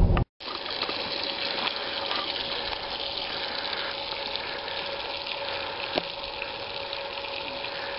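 Bacon frying in a pan on a portable gas camping stove: a steady sizzle with small crackles, and one light knock about six seconds in.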